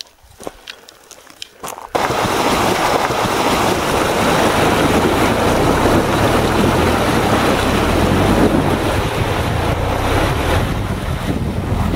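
Wind rushing over a camera microphone held outside a moving vehicle beside its front wheel, with the tyres splashing through a shallow water crossing and rolling over a gravel road. It starts abruptly about two seconds in, after a few faint clicks and rustles.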